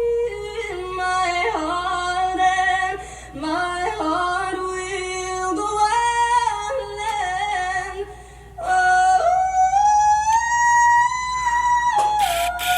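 Female voice singing, holding notes and sliding between them with quick runs and vocal ornaments.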